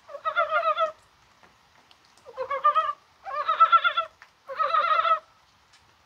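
Korean brown frogs (mountain frogs) calling in a breeding chorus: four bursts of rapid, pulsed croaking, each under a second long, with short quiet gaps between them.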